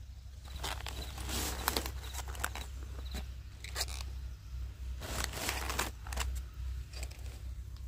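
Several bursts of crisp rustling, tearing and crunching, each up to a couple of seconds long.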